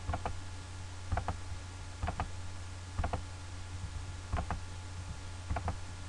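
Clicking from someone working a computer: pairs of short, sharp clicks about once a second, over a steady low hum.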